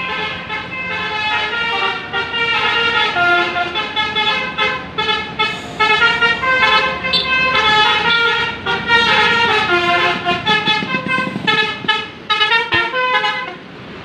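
Basuri telolet horn on an Aria Surya Trans coach, a set of musical air-horn trumpets, playing a tune in stepped notes with several notes sounding together. It stops just before the end.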